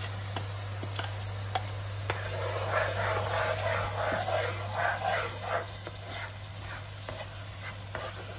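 Blended onion sizzling in hot oil in a nonstick wok while a plastic spatula stirs it, with a run of quick scraping strokes in the middle and a few light taps on the pan.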